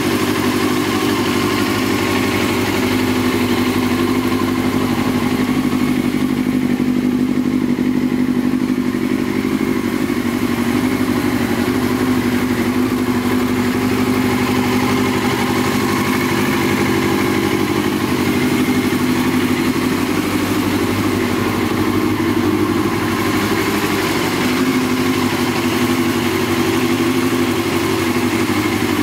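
1999 Yamaha R6's inline-four engine idling steadily.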